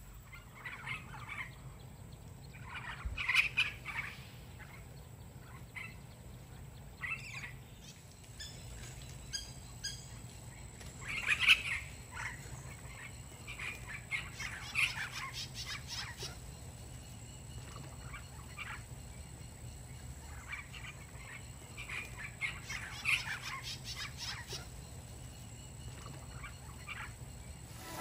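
Parrots calling: short squawks and chirps at irregular intervals.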